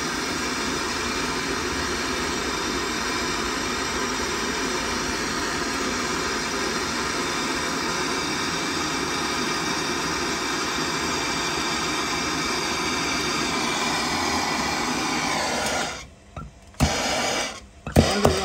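Gas blowtorch burning with a steady rushing hiss as it heats a copper pipe joint for soldering, then cutting off abruptly about sixteen seconds in, followed by a few short knocks and clicks.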